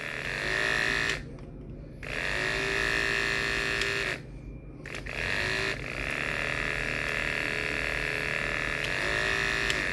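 Andis AGC 2-speed brushless clipper with a ceramic cutting blade running with a steady whine, cutting out twice and spinning back up each time. The stops come from the switch at speed 1 not being clicked fully into place, so a light touch shuts the clipper off.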